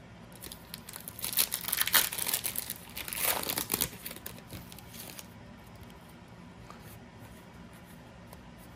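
Foil wrapper of a Panini Donruss trading-card pack being torn open and crinkled by hand, a run of crackling that stops about five seconds in.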